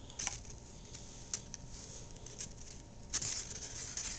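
Faint handling noise from a hand-formed paper cup: scattered small clicks and light rustling, with a slightly longer, louder rustle about three seconds in.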